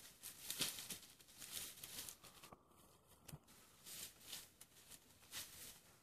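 Faint, irregular rustling and crackling of leaves and branches as an African elephant bull browses and moves through the bush.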